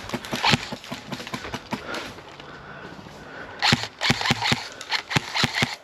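Airsoft guns firing: a few sharp shots just at the start, then a quick run of shots, several a second, through the last two seconds.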